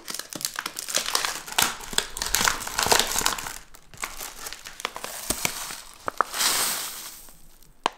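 A tea packet crinkling and rustling as it is handled, with small sharp clicks throughout. About six seconds in comes a short hiss as loose tea leaves pour from it into a bowl.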